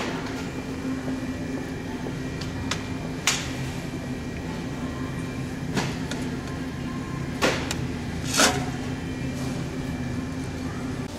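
Steady hum of a supermarket's refrigerated display cases and ventilation, with several short sharp clacks of aluminium drink cans being taken from a fridge shelf; the two loudest clacks come about a second apart in the second half.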